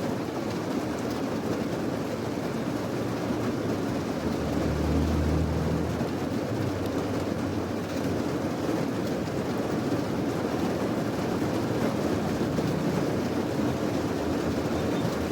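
Steady rain falling, a dull, even hiss, with a low rumble swelling briefly about five seconds in.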